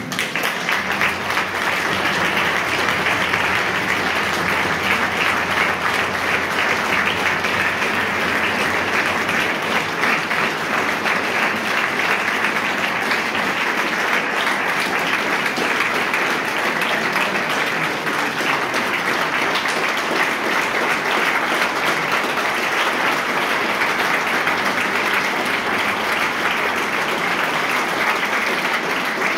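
Sustained applause from a concert audience, many hands clapping at once. It starts abruptly and holds steady.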